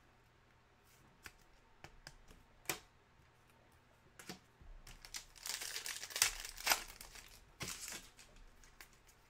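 A trading-card pack being torn open, its wrapper crinkling loudly for about three seconds midway. Before that come a few light taps as cards are handled.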